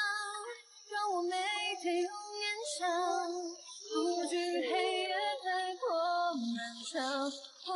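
Background song with a high singing voice carrying a slow melody of held notes.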